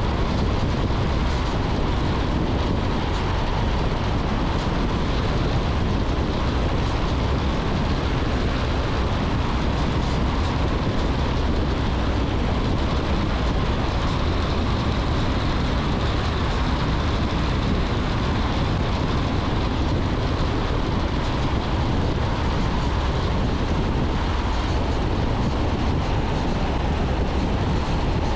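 Piper Warrior's engine and propeller running steadily on final approach, a constant drone with air noise and no change in level.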